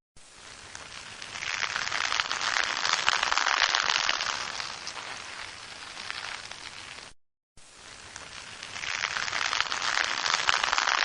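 Rain falling: a dense hiss of drops that swells and fades, cutting out briefly about seven seconds in and then building up again.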